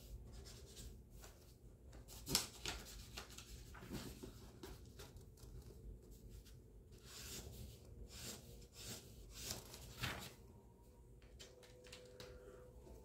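Faint rubbing and rustling of small objects being handled at a desk, with scattered soft knocks and clicks, the most distinct about two seconds in and again near ten seconds, over a low room hum.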